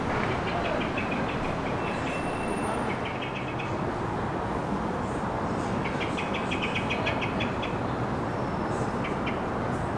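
A steady outdoor background rumble with small birds chirping in quick, high trills that come in short runs of about a second, several times over.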